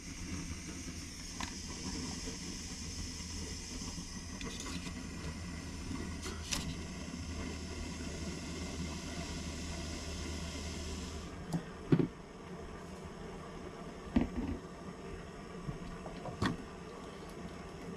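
Gas camp stove burner running with a steady hiss and low hum while heating water for coffee, cut off abruptly about eleven seconds in. A few sharp knocks and clinks follow, about four seconds apart.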